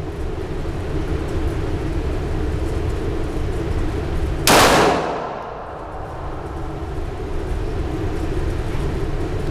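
A single semi-automatic pistol shot about halfway through, with a short echo off the walls of an indoor range, over a steady low rumble.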